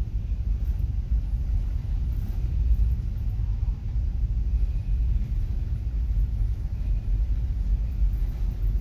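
Steady low rumble of a car ferry's engines and propellers working as it manoeuvres into its berth, churning up propeller wash.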